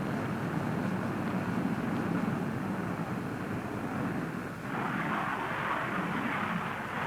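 Jet aircraft engine noise, a steady rushing sound. A little past halfway it dips briefly and comes back higher and hissier.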